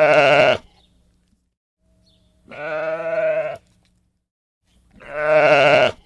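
Sheep bleating three times, each a wavering call about a second long, spaced roughly two and a half seconds apart; the first is already sounding at the start.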